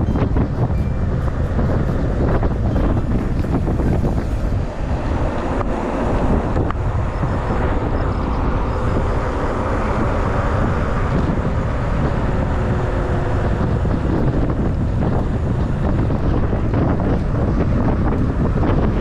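Wind buffeting the microphone while a mountain bike is ridden at speed, a steady loud rush with a brief dip about five seconds in.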